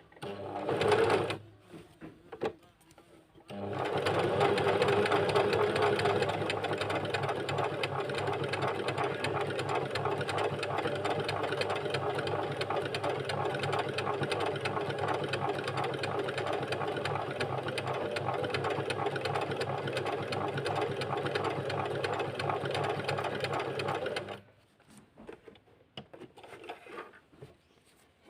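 Portable sewing machine stitching a buttonhole: a short run about a second in, then about twenty seconds of steady rapid stitching that stops suddenly.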